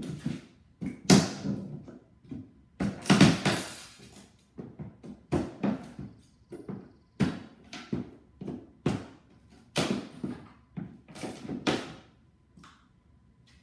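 Irregular knocks, thuds and scrapes, about one a second, from hands working on a wooden shipping crate. The loudest fall about one and three seconds in.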